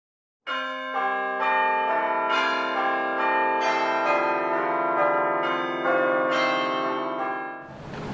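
Bells ringing one after another, a new strike about every half second, each ringing on under the next, stopping abruptly near the end.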